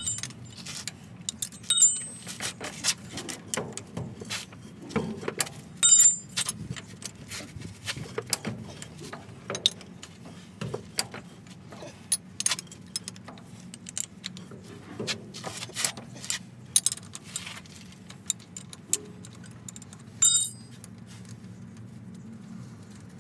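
Metal tools clinking and tapping on steel parts of a drive shaft during universal-joint work, with a few louder ringing metal strikes, about two, six and twenty seconds in, over a steady low hum.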